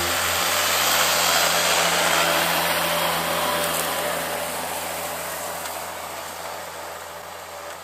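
John Deere 6520 tractor's six-cylinder diesel engine running steadily under load while ploughing, with a strong even hiss over it. The sound fades out gradually.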